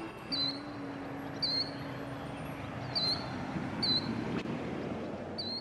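Short high bird chirps, about one a second, over a steady rushing wash, with a low held note underneath.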